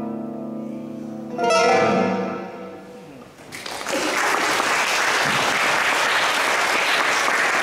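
A plucked string instrument ends a piece: a chord rings and fades, a final chord is struck about a second and a half in and dies away, then an audience breaks into steady applause.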